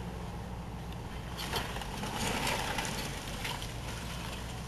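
Tracked excavator's diesel engine running steadily during building demolition, with several short crunches and clatters of breaking masonry and falling rubble about one and a half, two and a half and three and a half seconds in.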